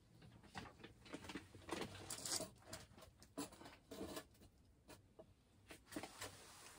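Faint, scattered light taps, clicks and a brief rustle, the sound of small objects being handled and set down in a small room.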